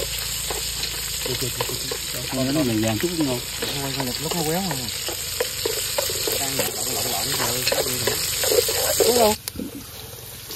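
Food sizzling as it fries in a pan and is stirred. The sizzle drops suddenly to a quieter level a little before the end.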